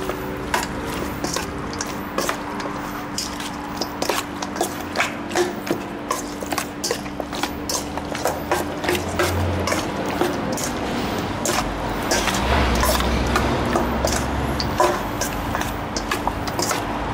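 Raw chicken wings being stirred and tossed through a wet marinade in a stainless steel bowl: continuous wet squelching with frequent sharp clicks against the metal bowl.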